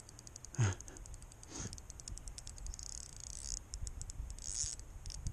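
Spinning reel ticking rapidly and evenly while a hooked carp is played on a bent rod. A short low thump comes about half a second in.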